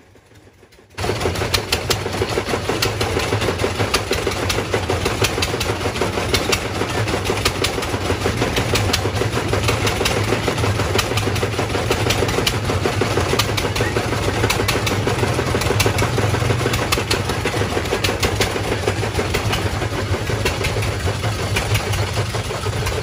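Engine running steadily with a fast, even knocking rattle. It starts abruptly about a second in, after a brief hush.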